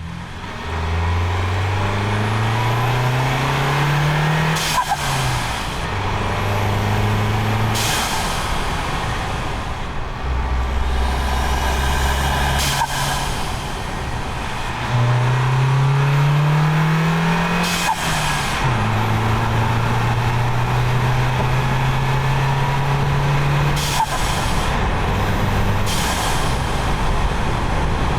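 Turbocharged four-cylinder of a VW MK7 Golf, heard from the engine bay, accelerating through the gears with engine pitch rising and then dropping at each shift. Several times, as the throttle closes, a short burst of turbo flutter sounds: the diverter valve spacer letting the boost chatter back through the turbo.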